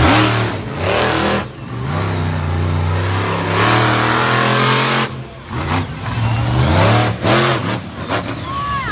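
Monster truck engine revving hard under heavy throttle, its pitch rising and falling, with two brief drop-offs as the throttle is lifted, while the truck tears around the dirt track and launches off a jump near the end.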